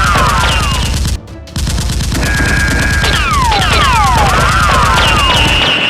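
Dubbed automatic-gunfire sound effects: a rapid, continuous burst of shots with falling whistling tones, cutting out briefly about a second in and then resuming, over background music.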